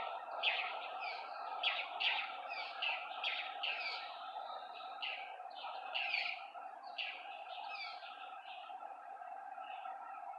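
Birds chirping in a quick, busy run of short calls that thins out over the last few seconds, over a steady background hum.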